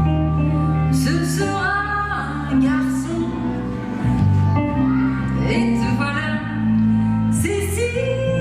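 Live music: a woman singing over instrumental accompaniment, with long held bass notes underneath.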